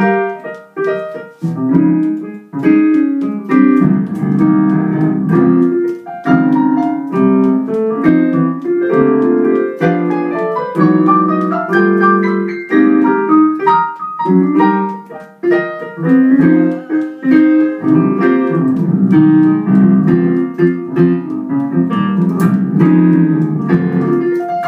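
Digital keyboard played with a piano sound: full two-handed chords with a melody line on top, in a slow worship song.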